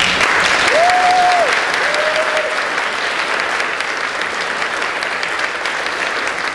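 Audience applauding, loudest in the first couple of seconds and then easing slightly. Two short cries ring out above the clapping near the start.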